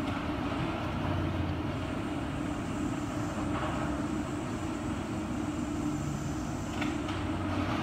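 Tracked excavator's diesel engine running steadily as it works a pile of demolition rubble, with a couple of faint knocks.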